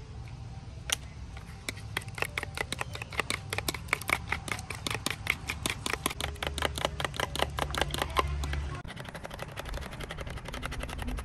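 A metal spoon stirring and mashing banana in a plastic tub, clicking against the tub's sides in a quick run of about five ticks a second. The clicks turn softer about nine seconds in.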